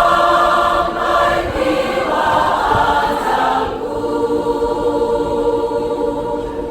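Church choir singing long held chords of a hymn. The last chord is sustained for a few seconds and eases off near the end.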